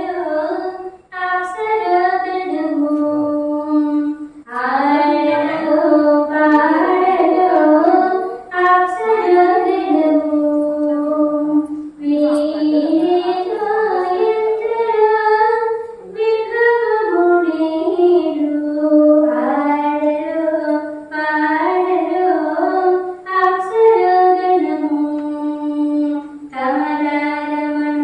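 A high voice singing a Telugu devotional song, with no instruments heard, in phrases of a few seconds with short breaks between.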